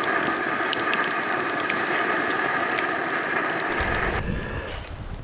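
Crumbed squid rings sizzling and crackling in hot oil in a frying pan. The sizzle cuts off about four seconds in, leaving low wind rumble on the microphone.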